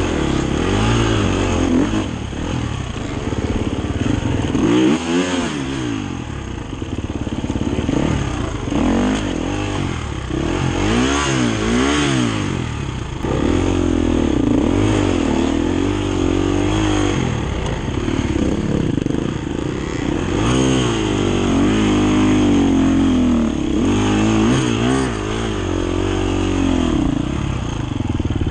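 Dirt bike engine revving up and down over and over, the revs rising and falling every second or two.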